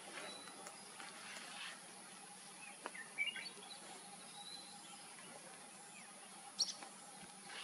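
Red-whiskered bulbul giving a short phrase of a few quick notes about three seconds in, over a faint steady hum. A brief high, sharp note comes about a second before the end.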